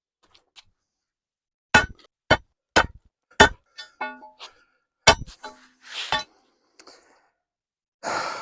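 Sledgehammer blows on an old stone wall: about five sharp strikes, some with a brief metallic ring, then a short scraping noise. A heavy sigh near the end.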